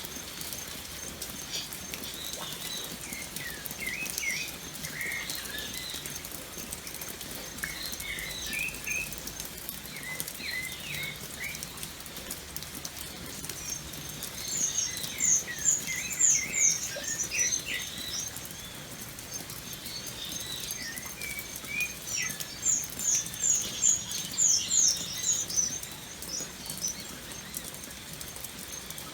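Steady rain patter with several birds chirping. Twice in the second half a bird gives a loud, rapid series of high notes, the loudest sound here.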